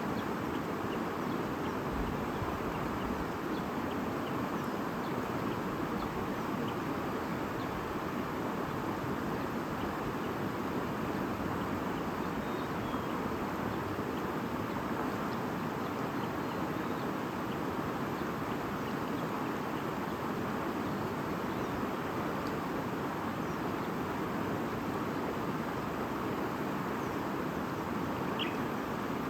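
Stream flowing with a steady murmur, with a few faint bird chirps over it, one a little clearer near the end.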